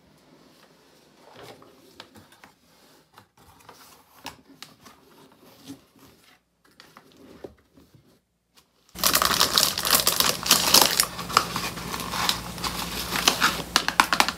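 A cardboard box being opened and handled, with faint rustles and light taps. About nine seconds in, much louder crackling and crinkling starts as the plastic-wrapped parts inside are handled.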